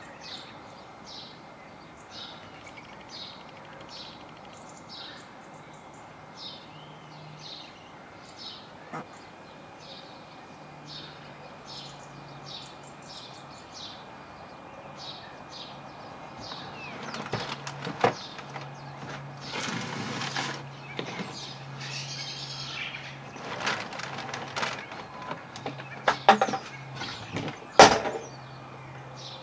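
A small garden bird chirping over and over, about once a second, with a faint steady hum beneath. In the second half come louder irregular flutters and knocks, typical of birds' wings flapping as they come and go at a feeder.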